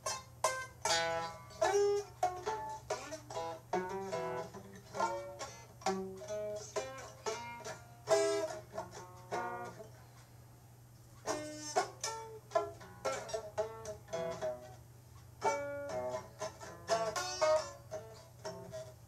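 Music on a plucked string instrument: a quick run of short, fast-decaying notes with a brief lull about ten seconds in, over a steady low hum.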